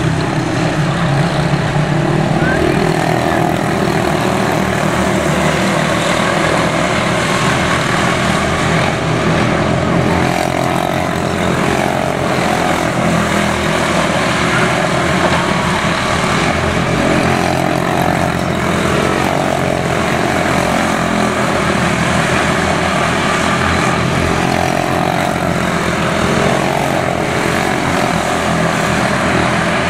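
Several quarter midget race cars with single-cylinder Briggs & Stratton Animal engines racing, a continuous high buzz of many small engines with pitches that rise and fall as the cars come round the track.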